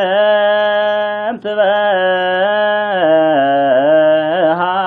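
A man's solo voice chanting Ethiopian Orthodox zema, a Ge'ez hymn to Mary, in long held, melismatic notes that bend slowly up and down in pitch. A short breath breaks the line about a second and a half in.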